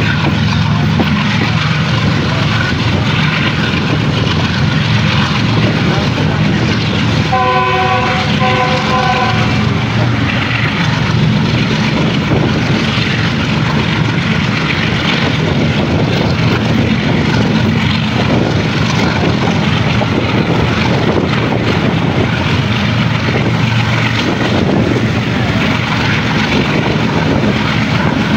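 Steady loud rumble and rush of the Khyber Mail passenger train running at speed, heard from an open coach doorway: wheels on rail and wind. About seven and a half seconds in, a train horn sounds two short blasts.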